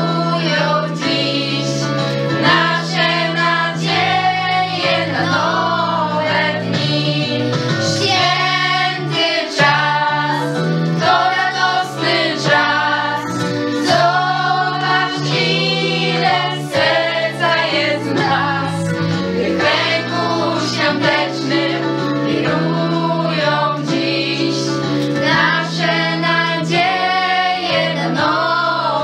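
A group of girls singing a Christmas song together, with the melody carried by several young voices at once.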